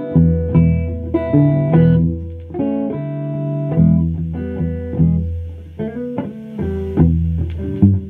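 Electric guitar played solo: a run of picked single notes and short ringing chords over a steady low note.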